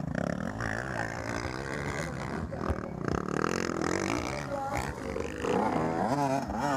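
Motocross bike engines revving as riders go past, the pitch rising and falling with the throttle. Near the end one engine revs up and down quickly several times.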